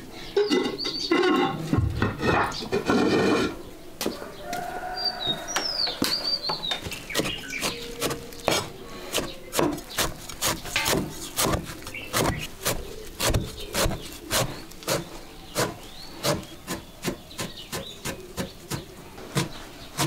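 A bowl scraping and knocking inside a glazed clay crock as preserved vegetables are scooped out, with a bird chirping briefly in the middle. After that, a steel cleaver chops preserved vegetables on a wooden chopping board in steady strokes, about two to three a second.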